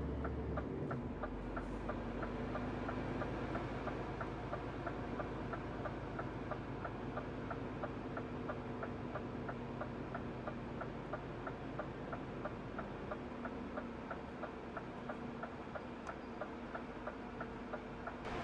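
Truck turn-signal indicator ticking steadily and evenly inside the cab, over the low drone of the MAN TGX's diesel engine running at low speed.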